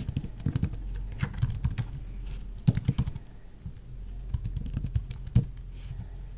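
Typing on a Microsoft Wedge Bluetooth keyboard: irregular runs of key clicks as a name is typed out, over a low steady hum.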